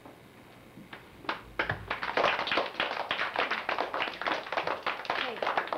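A group of children applauding: a few scattered claps about a second in, then many hands clapping together from under two seconds in.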